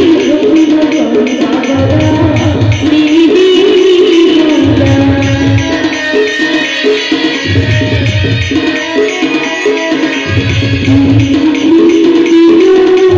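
Sambalpuri-style Odia song: a sung melody over quick hand-drum percussion, with a deep bass note coming in about every three seconds.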